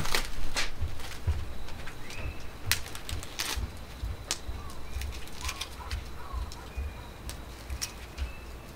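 Charcoal fire in a tabletop barbecue grill crackling with irregular small pops, mixed with light clinks of plates and food being handled, over a low gusty wind rumble on the microphone.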